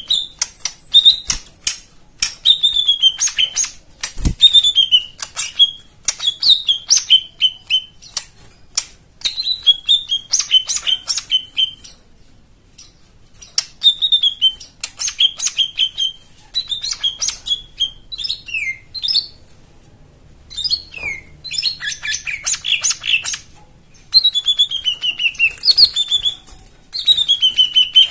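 A cucak ijo mini (small leafbird) singing in repeated short phrases. The phrases are sweet whistles that fall in pitch, mixed with sharp clicking notes and quick chirps, broken by a few short pauses.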